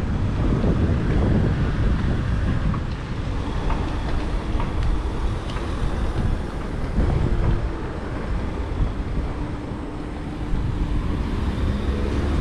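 Outdoor city street ambience: a steady low traffic rumble with wind buffeting the microphone.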